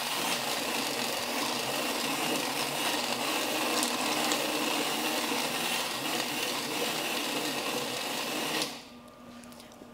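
Handheld immersion blender running steadily in a stainless-steel pot of thick cheddar cheese soup, the motor whirring as the blade churns and smooths the soup; it switches off suddenly near the end.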